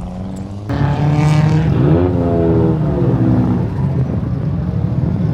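Drift car engine revving hard on track. It jumps in loudness about a second in, and its pitch climbs and then falls.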